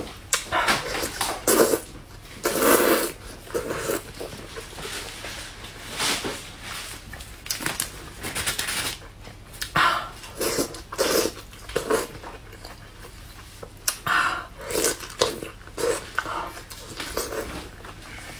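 Slurping and chewing of soft, sauce-soaked braised eggplant strips, in irregular wet bursts.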